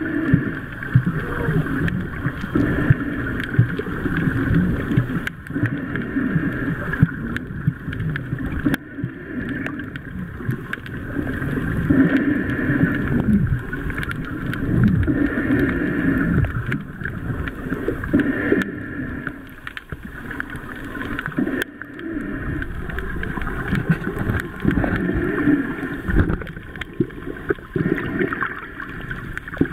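Muffled underwater sound picked up by a camera in a waterproof housing: water swishing and gurgling, rising and falling, with a few sharp clicks.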